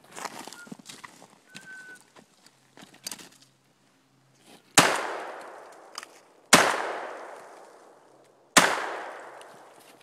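Three 12-gauge shotgun shots fired into a tree trunk, about two seconds apart in the second half, each blast followed by a long echo that fades away.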